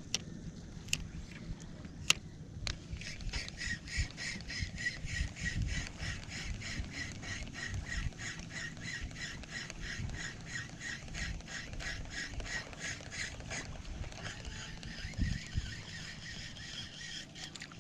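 Ultralight spinning reel being cranked on a retrieve, its gears giving a fast, even ticking whir that starts about three seconds in and turns fainter and smoother near the end. A few sharp clicks come in the first two seconds, and wind rumbles on the microphone underneath.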